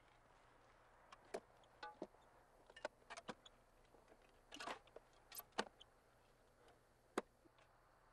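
Faint, irregular scrapes and clicks of digging in earth: a dozen or so short strokes at uneven intervals, with quiet between them.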